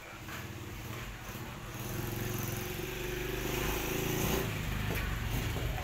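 An engine running steadily, growing louder about two seconds in and then holding at that level.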